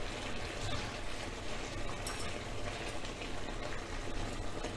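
A pot of chicken drumsticks simmering in marinade, bubbling steadily, with a metal spoon stirring through it and a faint clink about two seconds in.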